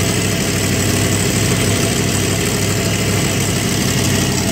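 Fox-body Mustang's 5.0 V8 idling steadily with the radiator filler open under a coolant funnel, running so the engine warms up and the air can be bled from the cooling system.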